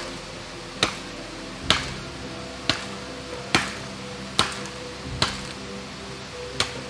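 A series of sharp knocks, roughly one a second, over soft background music with steady held notes.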